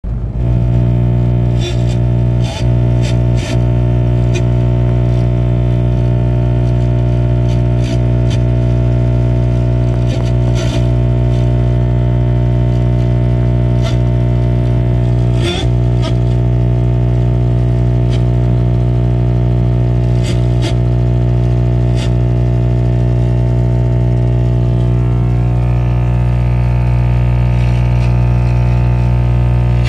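Loud distorted music holding one unchanging chord as a steady drone, with a few short clicks scattered through it.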